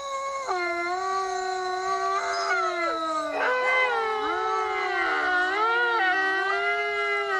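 A recording of a pack of wolves howling, played through a phone's speaker: several long overlapping howls at different pitches, gliding up and down.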